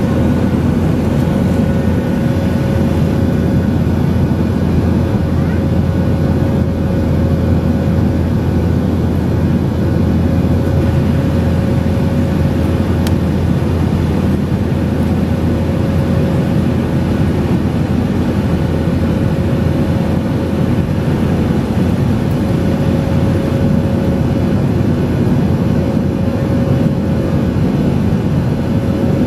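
Steady jet airliner cabin noise in cruise: the drone of the jet engines and rushing air, with a faint steady whine.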